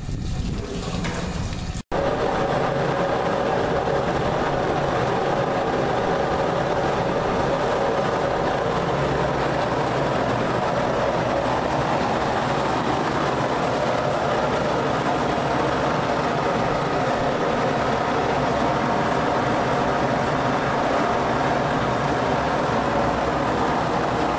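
Grape destemmer running with its hopper auger turning: a steady mechanical hum that holds unchanged, after a brief break about two seconds in.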